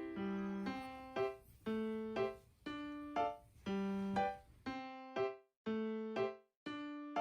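Background music: keyboard chords struck about twice a second, each fading before the next, in a light, even rhythm.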